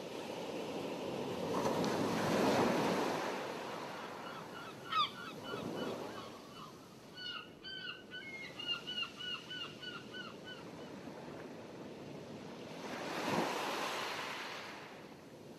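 Sea waves washing in, swelling twice, with a run of short, quickly repeated bird calls in the middle.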